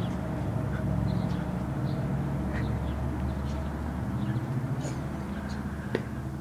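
A steady low rumble with a faint hum, with short bird chirps scattered throughout and a single sharp click about six seconds in.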